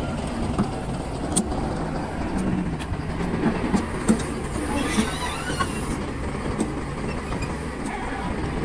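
Excavator diesel engine running steadily under load, with scattered sharp knocks and a stretch of rock clatter about halfway through as the bucket works blasted rock.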